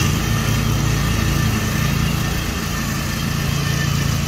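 Small gasoline engines running steadily, a continuous low drone with no change in pitch.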